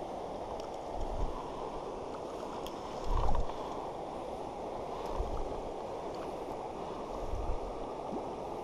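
River water running steadily over rocks in a shallow stretch, a constant rushing. A few short low thumps break through it, the loudest about three seconds in.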